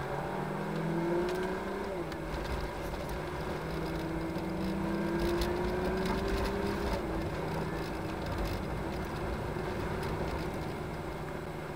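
Truck's diesel engine, heard from the cab, pulling away and accelerating. Its note rises, drops at a gear change about two seconds in, then climbs slowly again until it eases off about seven seconds in.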